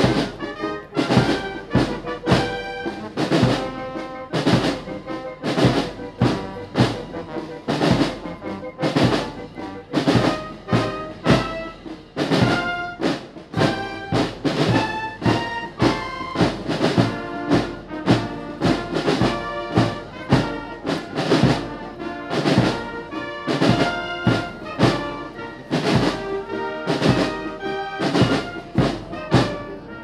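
Military band of brass and drums playing: trumpets and trombones carry the tune over snare and bass drums keeping a steady beat.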